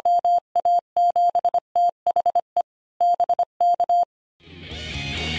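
Morse code beeped out as a steady mid-pitched tone in short and long beeps, spelling the amateur radio callsign JA7THE. After a short pause near the end, music fades in and grows louder.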